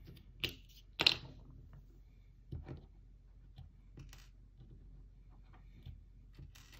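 Scattered clicks and rustles of components being pulled out of a solderless breadboard and set down on a wooden table, a few separate handling sounds with the loudest about a second in.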